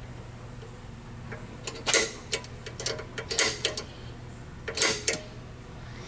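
Center punch clicking against the steel tube of a push-mower handle, marking a drilling spot: three sharp clicks about a second and a half apart, with a few lighter ticks between them.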